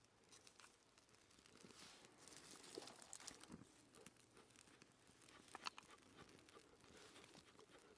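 Faint crackling and rustling of a small birch-bark and kindling fire as it catches, with a few sharper clicks about five and a half seconds in.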